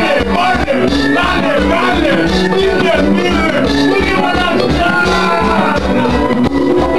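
A band rehearsing carnival music, with a singer over a steady bass beat and percussion.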